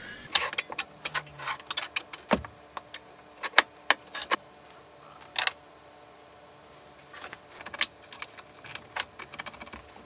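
Scattered small metallic clicks and clinks as the spindle mount on a homemade CNC router's Z-axis is adjusted by hand while it is being levelled.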